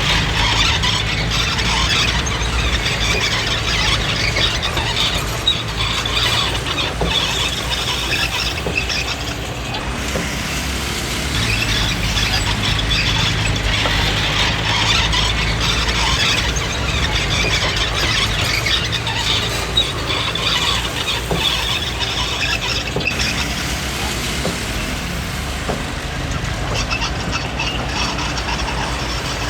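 Komatsu D20P crawler bulldozer working, its diesel engine running steadily under a continuous high-pitched squealing from the steel tracks and undercarriage.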